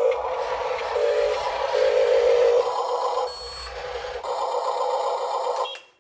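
Small electric motors of a Huina 1582 RC dump truck whining under power, the pitch steady and the level rising and falling in stretches before it cuts off suddenly near the end.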